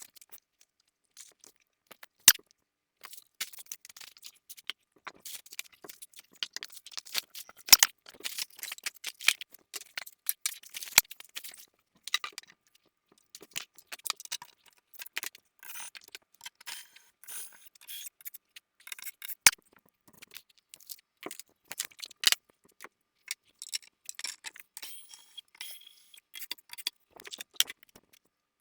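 Hands unpacking and handling the parts of a wooden toy chest kit: a busy run of sharp clicks and light knocks with a rustling, crinkling texture, and small hard parts clattering like jangling keys. A few louder knocks stand out, about 2, 8, 11, 19 and 22 seconds in.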